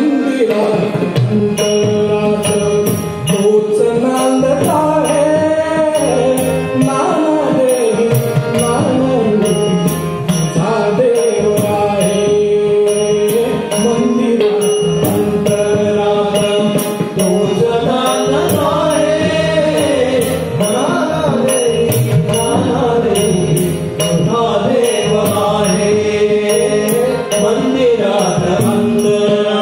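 Marathi devotional song (bhaktigeet) performed live: a male voice singing a gliding melody over harmonium and a steady tabla beat.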